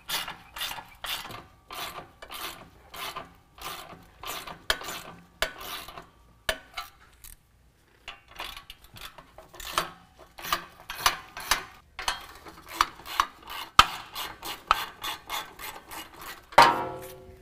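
Socket ratchet clicking in repeated short strokes, about two a second, as the 13 mm exhaust flange bolts are backed out. There is a brief pause about eight seconds in, and a louder, longer rasp near the end.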